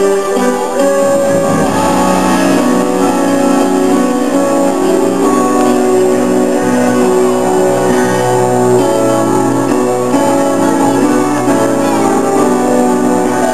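Instrumental music with held, sustained notes and chords at a steady level.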